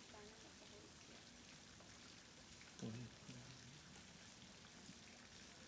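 Near silence: a faint, steady background hiss, with one brief murmur of a voice about three seconds in.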